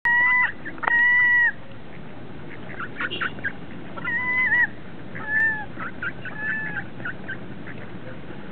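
Gulls calling: several drawn-out, mewing cries, the two loudest in the first second and a half, then weaker ones and short chirps.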